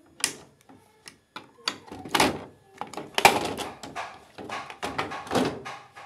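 Irregular knocks, clicks and clattering of a washing machine's plastic control-panel housing being handled, with louder bumps about two, three and five and a half seconds in.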